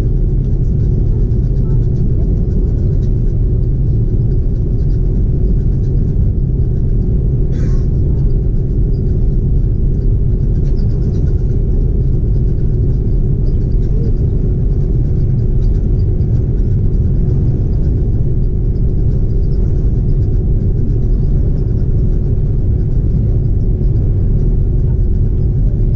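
Steady low rumble in the cabin of a Hawaiian Airlines Airbus A330 taxiing, with its Rolls-Royce Trent 700 engines at low power giving a steady hum over the rumble. One brief higher squeak about seven and a half seconds in.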